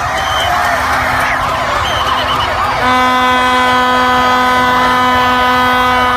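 A huge crowd cheering and shouting, with many overlapping wavering voices and short whistles. About three seconds in, a horn starts and holds one steady note over the crowd for about three and a half seconds.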